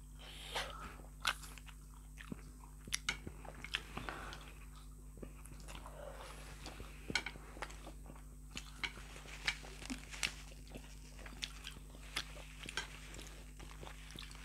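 Two people eating instant noodles and pork momos close to the microphone: chewing, with many irregular small clicks and smacks.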